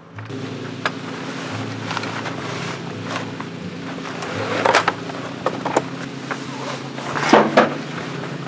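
Hard plastic storage boxes knocking and scraping as they are pushed onto the shelves in the back of a camper van, with the longest scrapes about halfway through and again near the end. Soft background music plays underneath.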